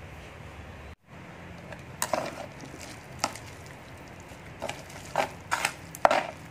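Chopsticks stirring instant noodles in an electric cooking pot, knocking and scraping against the pot's bowl in short, sharp, irregular clicks from about two seconds in, over a steady low hiss.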